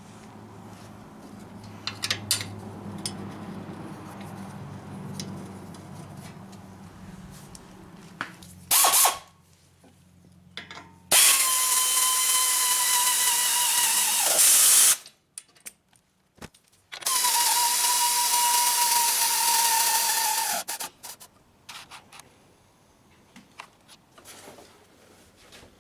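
A handheld power tool runs with a steady whine in three bursts: a brief one about nine seconds in, then two of about four seconds each, the pitch sagging as each run ends.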